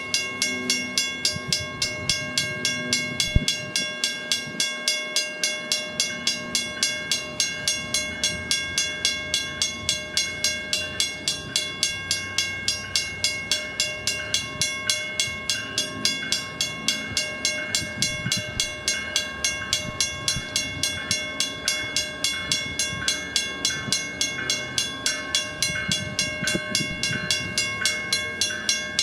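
Western-Cullen-Hayes first-generation electronic crossing bell ringing steadily at a warning crossing, about two and a half dings a second, with a low rumble underneath.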